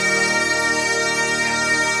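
Background music with steady, held drone notes.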